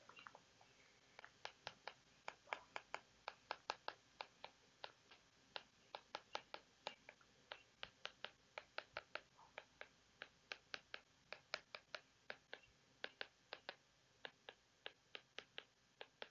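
Faint, quick taps on an iPad's glass touchscreen as letters and bond lines are handwritten on it, irregular at about two to four taps a second.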